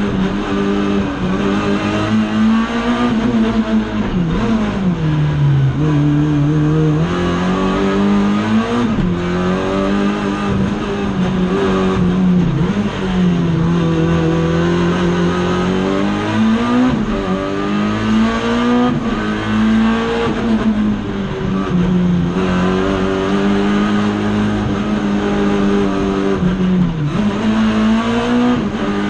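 Race car engine heard from inside the cockpit, loud throughout. The revs drop several times as the car slows for bends and then climb again under acceleration.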